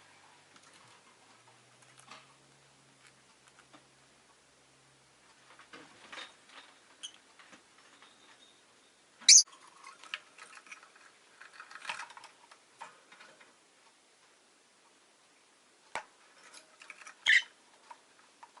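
Rosy-faced lovebird making small scattered clicking and scratching sounds, with two short, loud, shrill chirps: one about halfway through and one near the end.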